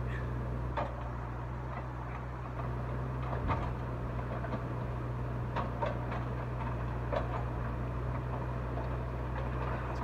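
A steady low mechanical hum, with a few faint clicks and knocks scattered through it.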